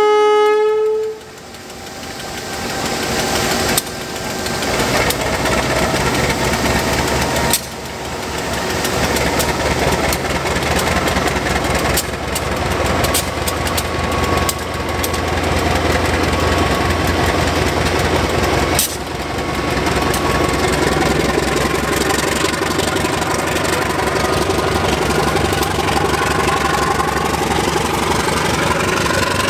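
Diesel-electric freight locomotive hauling a train of tank wagons: a horn blast that cuts off about a second in, then the diesel engine running loudly, its note rising near the end.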